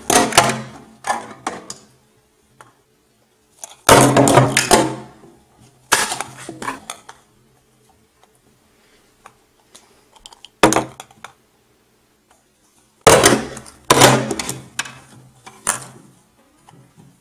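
Hollow plastic surprise eggs clattering as they drop and roll across a hard tabletop, in about six separate bursts that each die away quickly.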